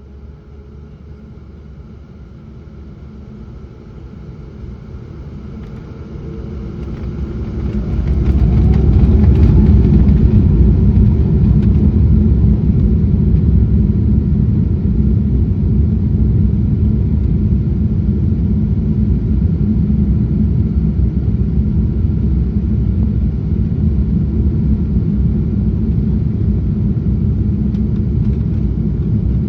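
Embraer 195-E2's Pratt & Whitney PW1900G geared turbofans heard from the cabin spooling up to takeoff thrust: a rising whine and building rumble over the first eight seconds or so, then a loud steady rumble through the takeoff run.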